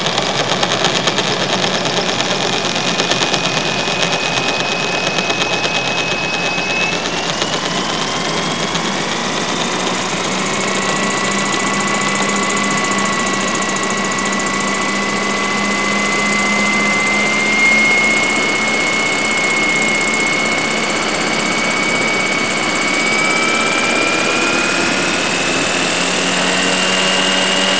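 RC UH-1 Huey scale model helicopter spooling up on the ground: a steady mechanical whine that slowly rises in pitch as the rotor gains speed, mixed with the model's onboard sound system playing through speakers glued to its fiberglass canopy.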